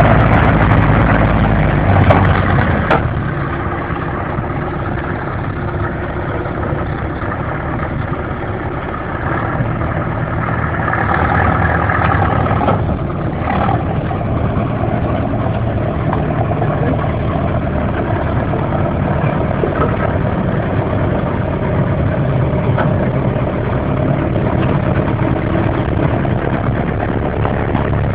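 Engine of a TTM-3902GR tracked all-terrain vehicle running steadily as the machine is run in after repair. It is loudest for the first few seconds, eases off, then picks up again about ten seconds in.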